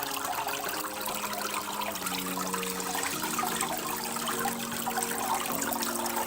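Small homemade cement waterfall fountain running: water trickling and splashing steadily down it.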